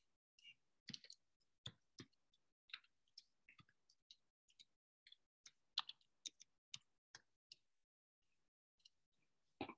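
Faint computer keyboard typing: irregular key clicks, a few a second, with a duller knock near the end.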